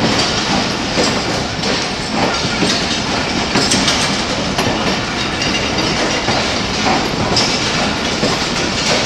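Passenger coaches of a Pakistan Railways express train rolling past as the train pulls out of the station, with steady rumbling and wheels clattering over the rail joints.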